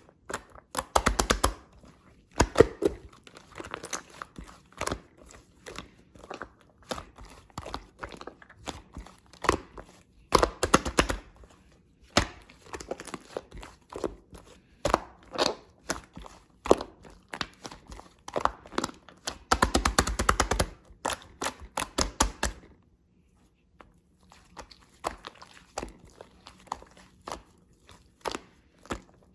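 Shaving-foam slime being squished and pressed by hand, making many sharp popping clicks in irregular runs, with three dense runs of rapid pops.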